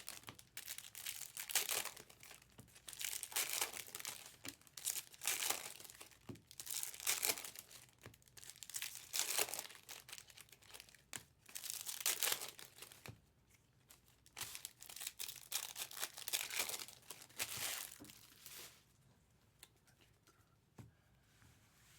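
Trading-card pack wrappers crinkling and tearing as packs are opened and handled, in repeated rustling bursts every second or two that die away about 19 seconds in.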